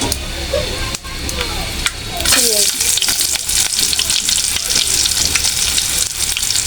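Hot oil sizzling in a kadai, at first fairly low with a few crackles. About two seconds in, it suddenly turns into a loud, dense sizzle with crackling as food goes into the oil, and it keeps frying hard.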